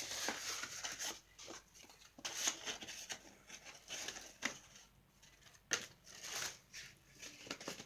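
Paper cards and an envelope rustling and tapping as they are handled, in irregular short bursts with a few louder rustles around the middle and near the end.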